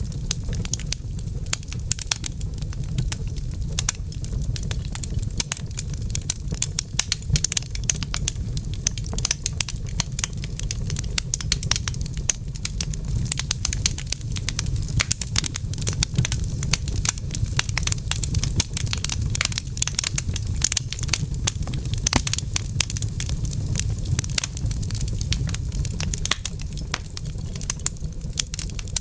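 Fire in a fireplace crackling: dense, irregular pops and snaps over a low, steady rumble.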